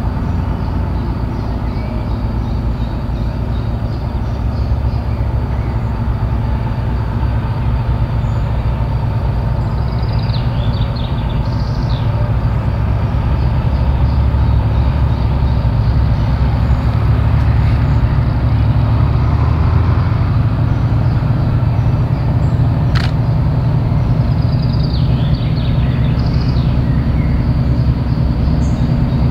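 Two-stroke opposed-piston 10D100 diesel engines of a 2TE10-series locomotive working hard under load as it pulls a freight train away, a deep steady rumble that grows louder as it approaches, with a steady whine over it.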